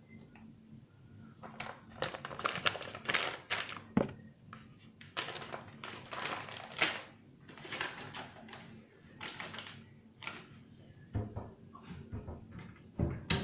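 Homemade shampoo-and-toothpaste slime being mixed, giving irregular bursts of sticky handling noise, with a sharp click about four seconds in and another near the end.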